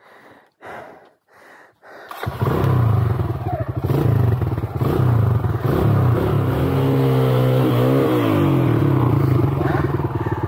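A few short breaths, then about two seconds in a trail motorcycle's engine comes in loud and runs hard under load on a slippery muddy climb. Its revs rise and then fall back around eight seconds in.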